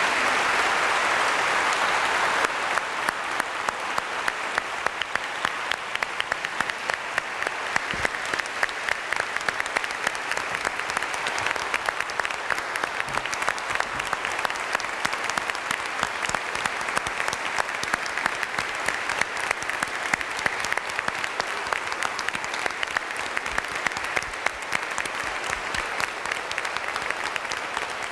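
Congregation applauding at length, a steady wash of many hands with sharp individual claps close by standing out. It dies away at the end.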